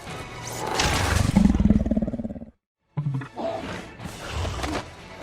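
A deep, growling creature roar from a sound-effects mix, swelling over music. It cuts off abruptly about two and a half seconds in, and quieter effects follow.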